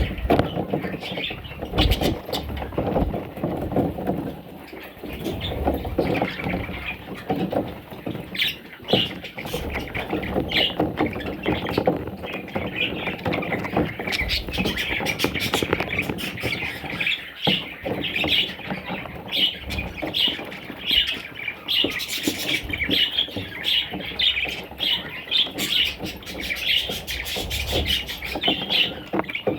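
A group of parrots chattering, chirping and squawking without a break.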